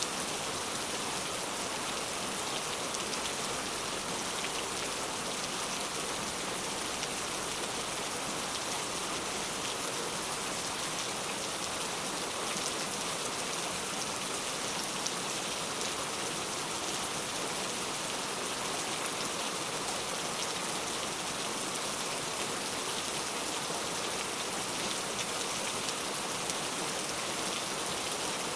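Steady rain falling: a dense, even hiss with a fine patter of individual drops.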